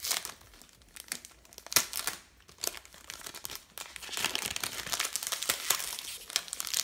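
Clear cellophane wrap being peeled and torn off a perfume box, crinkling and crackling in irregular bursts that grow busier in the second half.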